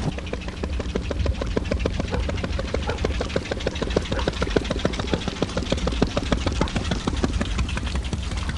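Small inboard gasoline engine of a Dispro (disappearing propeller) boat running, a rapid, even putt-putt of firing strokes over a steady low hum.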